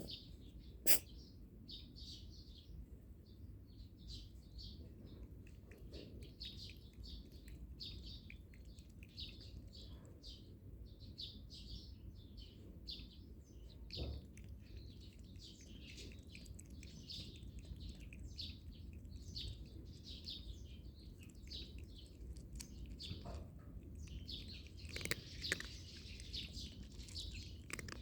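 Small birds chirping repeatedly, with a sharp click about a second in.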